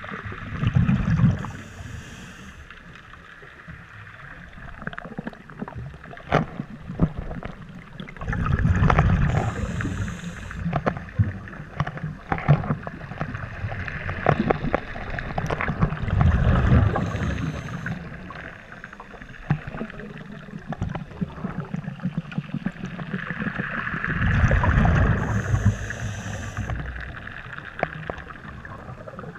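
Scuba regulator breathing heard underwater: four bubbly exhalations rumbling about eight seconds apart, each with a short hiss, with scattered sharp clicks in between.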